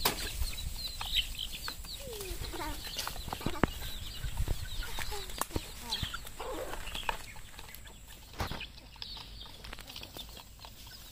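Chickens clucking and calling in short, scattered bursts, with a flurry of wing flapping near the start and several sharp taps along the way.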